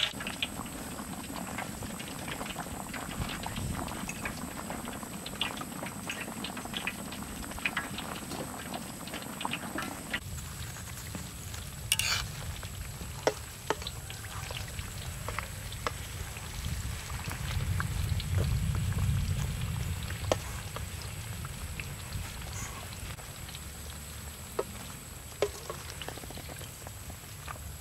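Dough cakes deep-frying in a wok of hot oil: a steady sizzle and bubbling with many small crackles, busier in the first half. A few sharp metallic clicks, like tongs striking the wok, come through, and a low rumble swells and fades past the middle.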